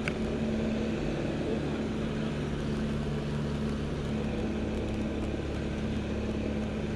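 L-13 Vivat motor glider's piston engine and propeller running at steady power in flight, heard from inside the cockpit as an even drone.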